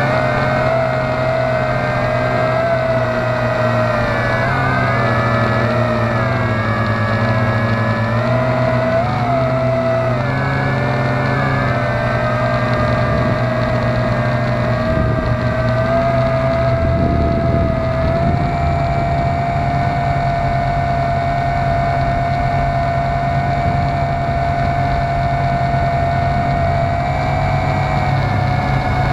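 Quadcopter motors and propellers whining in flight, picked up by a camera mounted on the airframe, with a low rumble underneath. The pitch wavers up and down with throttle through the first half, then holds steady over the last third, rising slightly near the end.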